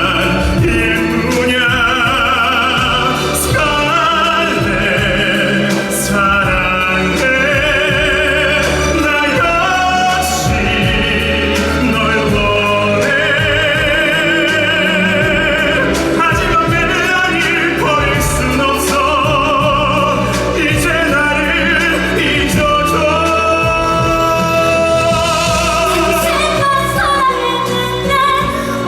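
Musical-theatre song: a singer holding long notes with wide vibrato over orchestral accompaniment.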